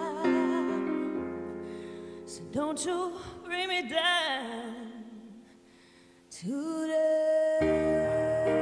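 A woman singing a slow ballad live with piano accompaniment: short sung phrases with wide vibrato, a near pause about five seconds in, then one long held note as the piano chords come back in.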